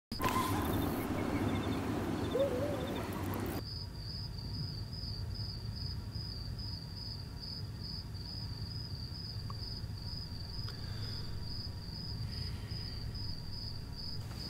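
Crickets chirping, a high, even pulsing trill about twice a second over a low hum. It starts about three and a half seconds in, when a louder stretch of mixed noise cuts off sharply.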